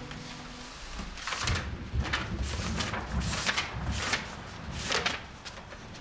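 The last plucked notes of an acoustic guitar ring out. Then, from about a second in, comes a run of irregular scrapes and rubs with a low rumble underneath, as an object is dragged across the guitar's strings and wooden body.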